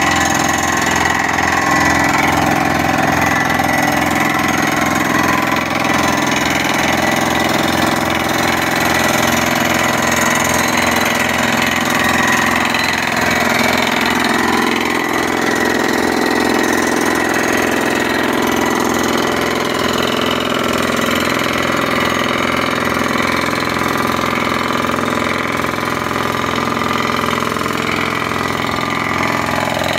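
Engine-driven drilling rig machinery running steadily, with a regular low pulsing throughout.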